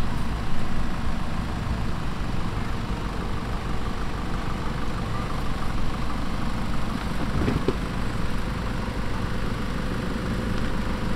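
An off-road 4x4's engine running steadily at low revs.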